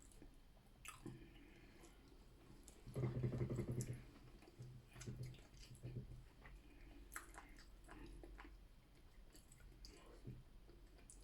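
Close-up mouth sounds of eating a saucy seafood boil: quiet chewing with scattered soft wet clicks. A short, low hum comes about three seconds in.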